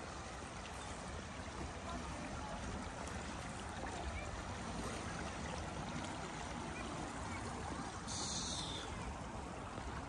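River water flowing over a shallow, rippled stretch: a steady, even rush. A brief higher hiss comes in about eight seconds in.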